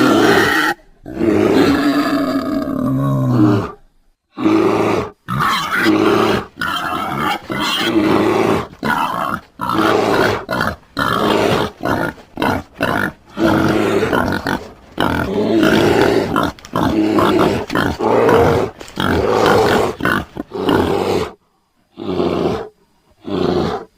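Hog Bear creature sound effects, made from grizzly bear and wild boar recordings: a long roar that bends in pitch, followed by a string of short grunting roars and growls with brief silences between them.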